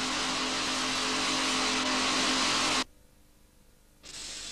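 Pneumatic rock drills on a twin-boom drilling rig running while they bore blast holes into the ore face: a loud, dense, steady noise with a hum, cut off abruptly about three seconds in. After a second of near silence, a faint steady hiss begins.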